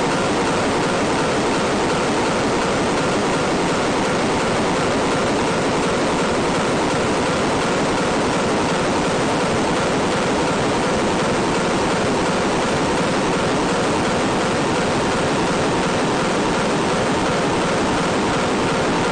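A steady, loud rushing noise like static, even and unchanging, with no beat or breaks.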